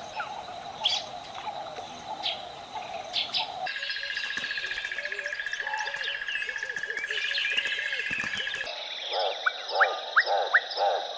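Wild birds chirping and calling in a spliced nature recording. About a third of the way in it cuts to a dense chorus of birdsong over a steady buzzing trill. Near the end it cuts again to frogs croaking in a regular series, a few a second, with sharp rising calls over them.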